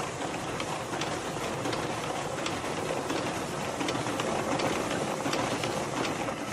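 Central-count ballot scanner (Dominion ImageCast Central system) feeding a stack of paper ballots through: a steady mechanical whir with quick clicks of sheets passing, stopping abruptly at the end.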